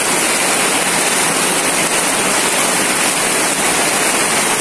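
Rain falling steadily on a tarpaulin tent roof overhead: a loud, continuous hiss.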